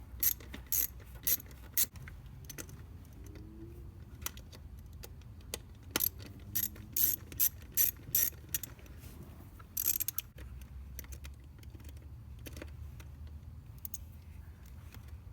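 Right-angle ratcheting driver clicking in short runs as it backs out the small screws holding a distributor cap, over a low steady hum.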